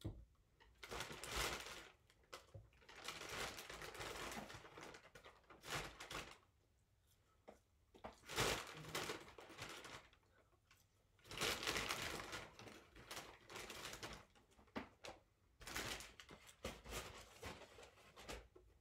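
Brown paper takeaway bag rustling and crinkling in several bursts as food is taken out of it.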